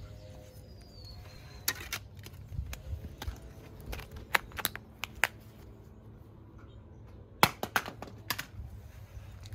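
An LG Optimus smartphone handled with a few light clicks and taps, then dropped onto coarse concrete about seven and a half seconds in: a sharp hit followed by several quick clattering bounces.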